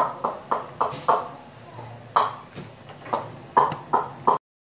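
A ladle knocking against the side of a pot while stirring thick rice porridge: a run of sharp hollow knocks, about three a second, with a pause of about a second midway. The sound cuts off abruptly near the end.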